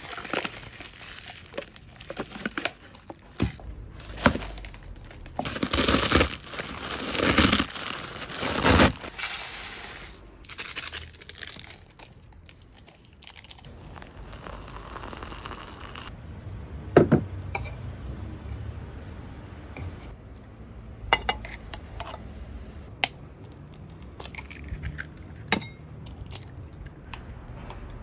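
Plastic film torn and crinkled off a cup of instant noodles, in loud rustling bursts. Later, water poured into the noodle cup, then scattered knocks and clinks of utensils.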